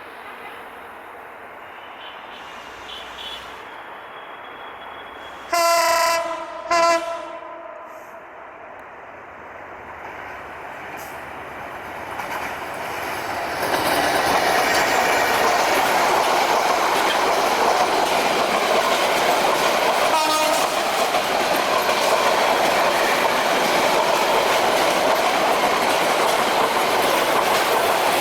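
An EMD GT38AC diesel locomotive's horn gives two short blasts about six seconds in. The passenger train then comes up, and from about halfway it passes close by as a loud, steady rumble with wheels clattering over the rail joints. There is a brief faint horn toot about twenty seconds in.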